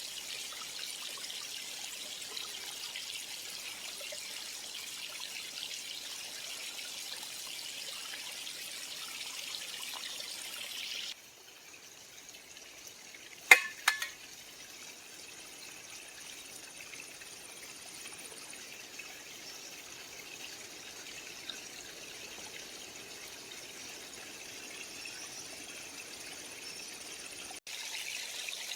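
Creek water trickling and flowing as a steady hiss. About 11 s in it drops quieter, and soon after two sharp clicks come half a second apart.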